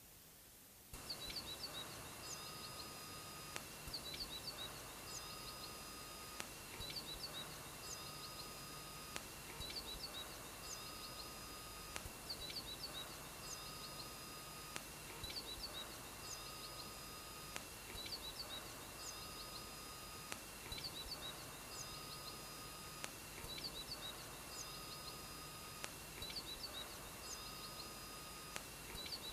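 An electronic sound loop that starts suddenly about a second in. Clusters of quick bird-like chirps alternate with short steady beeping tones over one constant high tone, the same pattern repeating about every two and a half seconds.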